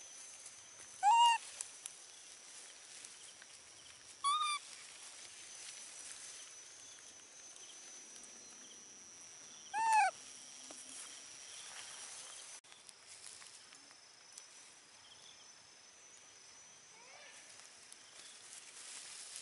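Baby macaque giving short high coo calls, three clear arched cries about a second, four and ten seconds in, and a faint one near the end. A thin steady high tone runs underneath and drops out about two-thirds of the way through.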